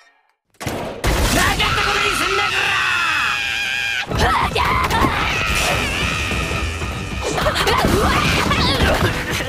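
A young woman's voice screaming and shrieking in panic, high-pitched, over dramatic music with crashing impacts. It starts after a short silence about a second in.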